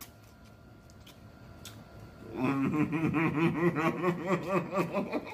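A man chewing a mouthful with a few faint mouth clicks. Then, about two seconds in, he hums a rhythmic 'mm-mm-mm' of enjoyment through closed lips, pulsing about four times a second.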